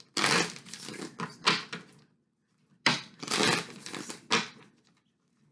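Tarot deck being shuffled by hand: two bouts of crisp, crackling card noise, the second starting about three seconds in.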